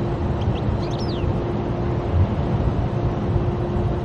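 Road noise heard from inside a moving car's cabin: a steady rumble of tyres and engine with a constant hum. A few faint high chirps come about half a second to a second in.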